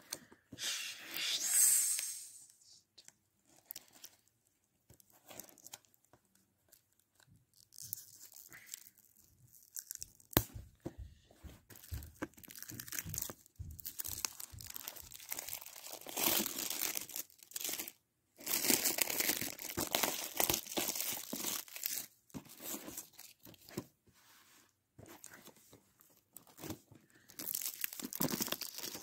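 Plastic shrink wrap on a Blu-ray case crinkling and tearing as hands work it, in crackly bursts of a second or two with quiet gaps between.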